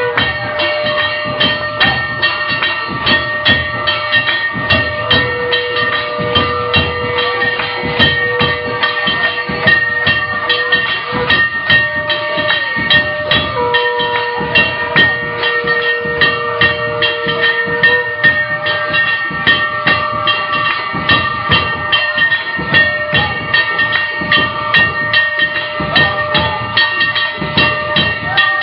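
Instrumental devotional music: long held notes that shift pitch now and then over a fast, steady beat of percussion.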